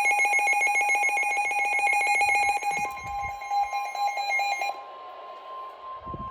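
A fast-trilling electronic alert ringing. About three seconds in, the steady single-pitch NOAA Weather Radio 1050 Hz warning alarm tone joins it, signalling an imminent warning broadcast. The trilling stops near five seconds, and the steady tone cuts off at the end.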